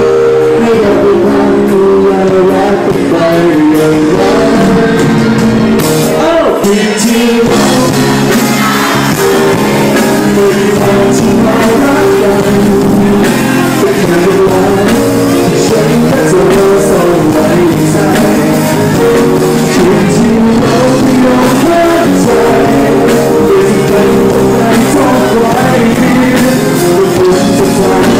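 Live band playing a song with a singer over it, loud and continuous.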